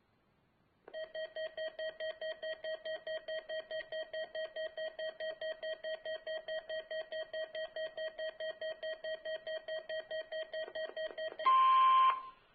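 Weather radio alert beeping in a rapid, even pulse of about five beeps a second for roughly ten seconds. Near the end comes a brief, louder burst of warbling data tones with a steady tone mixed in, the radio's test alert signal, which cuts off suddenly.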